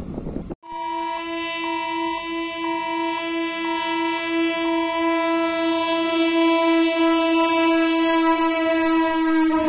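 Electric multiple unit (EMU) local train's horn, one long steady blast held for about nine seconds, growing louder as the train approaches the crossing. It starts about half a second in, after wind noise.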